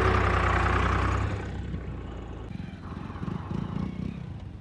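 Swaraj 744 tractor's three-cylinder diesel engine working hard, pulling a cultivator through the soil, until it cuts off about a second in. After that, a motorcycle engine is heard, much quieter and uneven, rising and falling as it rides over rough ground.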